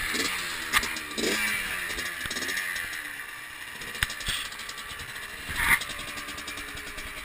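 85cc two-stroke dirt bike engine running, its revs falling off over the first three seconds and then settling lower. There are a few sharp knocks, the loudest a short clatter near the end.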